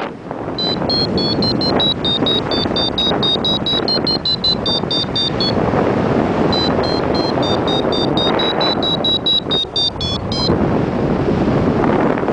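Paragliding variometer beeping in quick, high-pitched pulses of about three to four a second, the tone wavering slightly, the signal for climbing air. Heavy wind noise on the microphone runs under it. The beeping pauses briefly near the middle and stops about ten seconds in.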